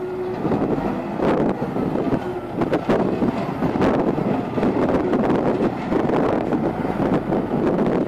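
Turbocharged diesel engine of an articulated wheel loader, running loud and working hard while the loader carries a raised grab of manure.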